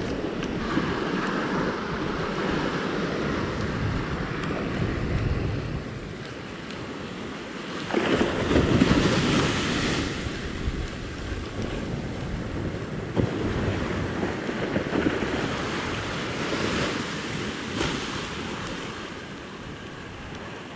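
Surf washing onto a sandy beach, with wind buffeting the microphone; one wave surges in louder about eight seconds in.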